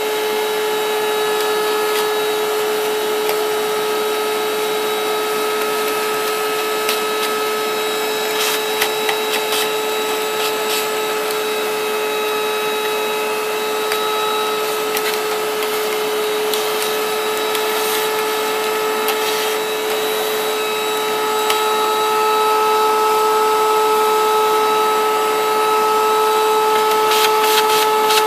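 Vacuum cleaner running steadily with a constant whine as its nozzle sucks dust off a TV circuit board. A brush working the dust loose adds scattered clicks and scratches, and the suction grows a little louder about two thirds of the way through.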